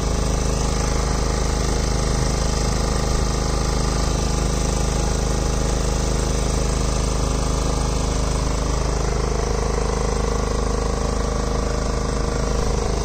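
A boat engine running steadily, an even, unbroken low drone.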